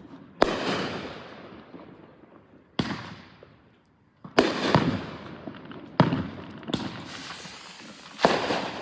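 Fireworks going off: about six sharp bangs, one every second or two, each trailing away in a long fading tail.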